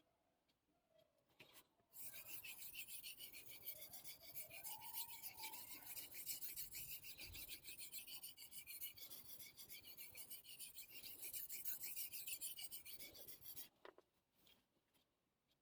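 Damascus steel kitchen knife blade stroked back and forth on a wet Naniwa Superstone whetstone, a continuous gritty scraping. It starts about two seconds in and stops shortly before the end.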